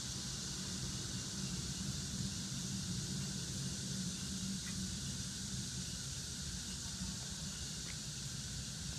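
Steady low hum with a constant hiss over it, unchanging throughout and with no distinct knocks or other events.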